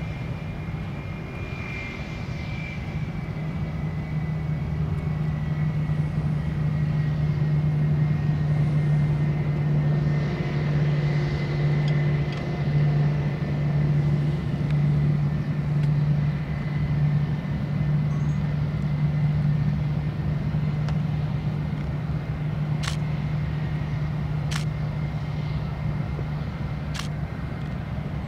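Airbus A319 jet engines at idle as the airliner taxis: a steady low hum with a fainter high whine above it, swelling slightly midway. Three sharp clicks sound near the end.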